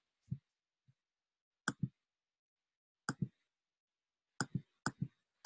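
Computer mouse button clicked several times, each click a quick press-and-release pair. A soft tap comes near the start, then the pairs arrive more closely together toward the end.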